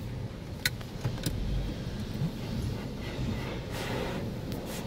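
Car-wash prep spray from a hand-held pressure wand hitting the car, heard from inside the cabin as a steady spraying noise, with two sharp clicks a little under a second in.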